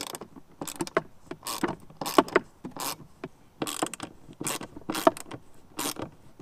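Screws being backed out of a plastic body guard with a hand tool: irregular clicking and scraping of the tool in the screw heads, a few clicks a second.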